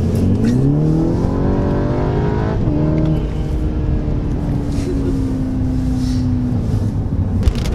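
Volkswagen GTI's turbocharged 2.0-litre four-cylinder, with an APR Stage 2 tune and APR downpipe, accelerating hard, heard from inside the cabin. The engine note rises for about two and a half seconds, drops sharply at a gear change, then holds and slowly falls.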